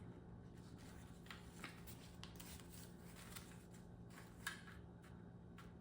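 Faint, scattered rustles and light ticks of paper banknotes being handled, over a low steady room hum.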